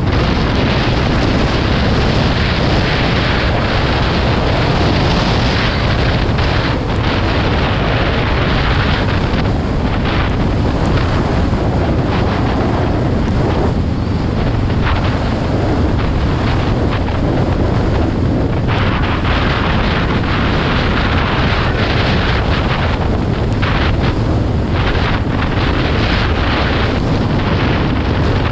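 Loud, steady wind rush buffeting the microphone of a moving quad bike, with the quad's engine running underneath.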